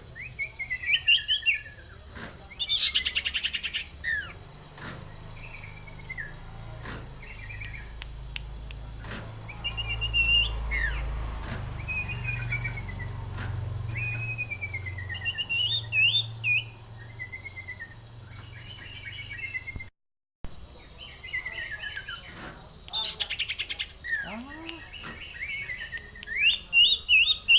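Common iora singing: short whistled phrases that slide up and down, repeated over and over and mixed with fast rattling trills. A low rumble sits under the song in the middle, and the sound drops out briefly about two-thirds of the way through.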